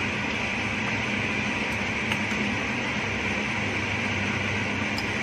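Steady hum and rushing whir of a running fan motor.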